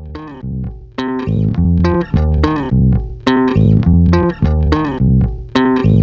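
Instrumental music with a steady beat of plucked bass and guitar notes, getting louder over the first second.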